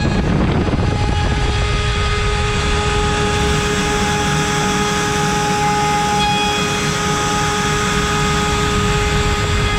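CNC router spindle turning an 8 mm cutter at 24,000 rpm while milling wood: a steady whine over a constant cutting noise.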